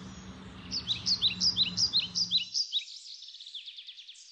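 Birds calling: a quick series of high, thin, downward-slurred chirps at two alternating pitches, loudest in the first half, running on into a faster, fainter trill.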